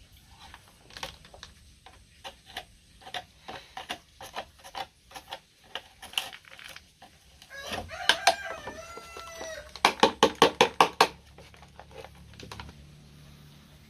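Scattered light clicks and taps of small parts and tools being handled, with a rooster crowing once for about two seconds near the middle. Right after the crow comes a quick run of about eight sharp, evenly spaced knocks.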